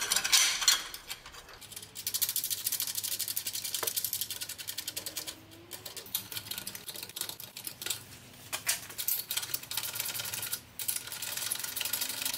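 Hand ratchet clicking fast as nuts are run down on the bolts of an exhaust clamp bracket, in several spells with brief pauses between them.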